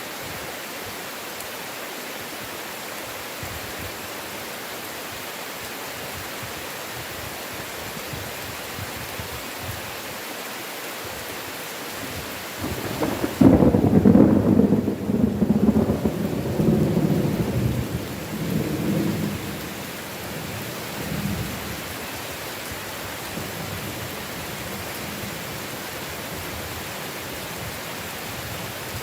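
Steady heavy rain. About halfway through, a loud peal of thunder rumbles for several seconds and dies away, followed shortly by a fainter rumble.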